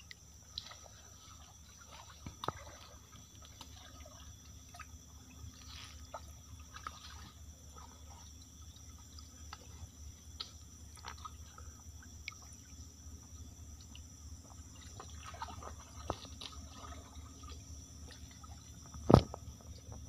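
A hand moving through shallow stream water among submerged plants: small splashes, drips and trickles. A single sharp, loud knock near the end.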